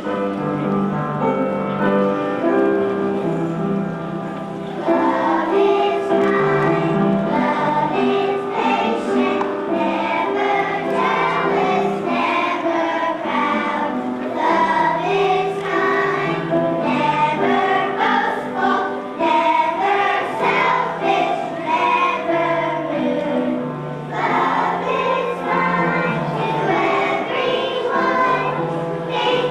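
A choir singing a song with musical accompaniment.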